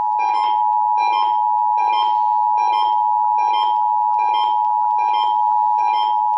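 Emergency Alert System attention signal played over FM radio: the steady two-tone alert (853 and 960 Hz) that precedes a Required Monthly Test message. A second short beep pulses over it about every 0.8 seconds.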